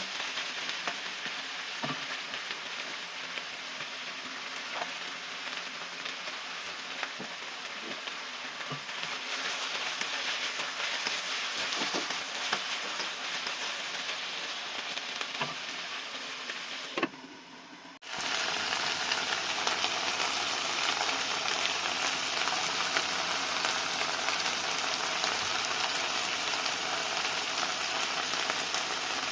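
Ground pork picadillo sizzling in a frying pan, with scattered clicks in the first part. The sizzle briefly drops away about two-thirds through, then comes back louder and steadier.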